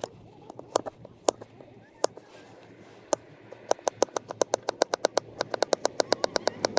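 Kitchen knife chopping a cucumber finely: a few scattered cuts, then from about halfway a fast, even run of about seven chops a second.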